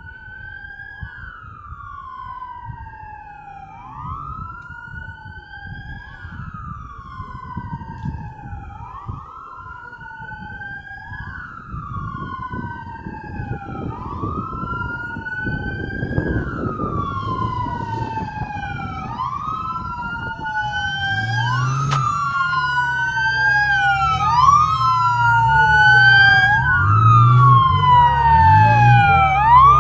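Police car sirens in a wail, rising and falling about every two seconds and growing steadily louder as they approach. About two-thirds of the way in, a second siren joins out of step with the first, over a low engine rumble.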